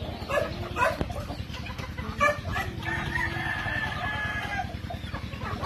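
Backyard chickens clucking as hens and roosters feed together, with short calls scattered through. About three seconds in, a rooster crows: one held call lasting about two seconds.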